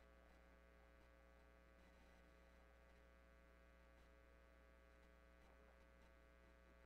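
Near silence with a steady electrical mains hum.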